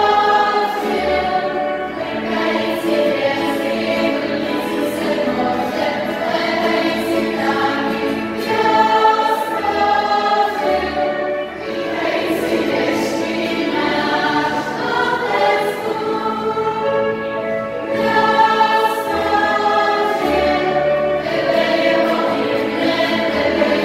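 Young female choir singing a song together, accompanied by a small band of guitars, double bass and violin.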